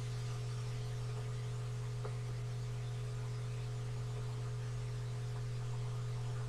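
Steady low electrical hum with a faint hiss underneath, unchanging throughout.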